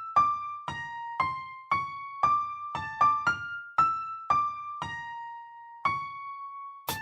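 Background music: a slow melody of single keyboard notes with a piano-like tone, struck about twice a second, with one longer held note near the end.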